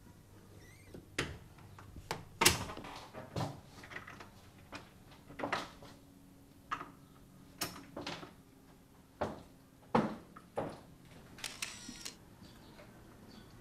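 A series of sharp, irregular clicks and knocks, about a dozen, the loudest about two and a half seconds in and again about ten seconds in.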